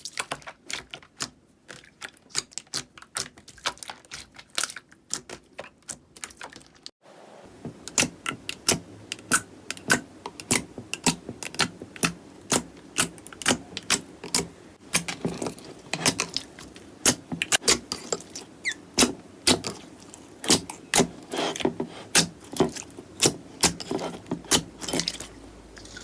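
Slime squeezed and pressed by hand, giving rapid crisp clicks and pops. At a cut about seven seconds in, it changes to a denser, fuller run of pops.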